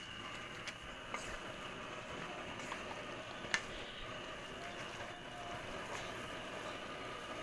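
Wooden spatula stirring spaghetti through a creamy sauce in a large metal pan, with a few sharp clicks of the spatula against the pan, the loudest about three and a half seconds in, over a steady hiss.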